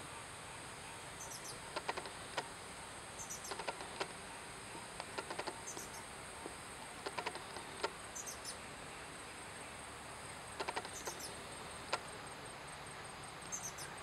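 Steady high-pitched insect drone, turning into a fast pulsing about halfway through, with small clusters of short sharp clicks every second or two.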